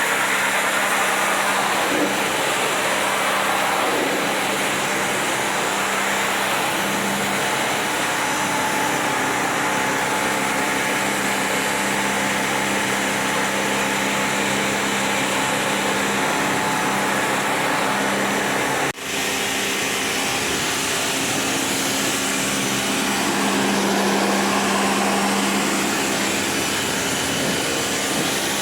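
Pressure washer pump running steadily while its water jet sprays, cleaning the clogged coils of a package AC unit, with a brief break about two-thirds of the way through.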